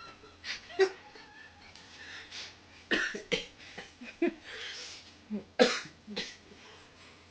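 A person coughing in short, sharp bursts, about eight times over several seconds.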